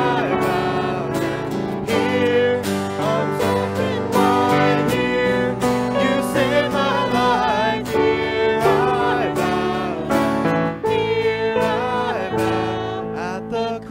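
A live worship band playing a slow song: voices singing a sustained melody over strummed guitars and keyboard chords.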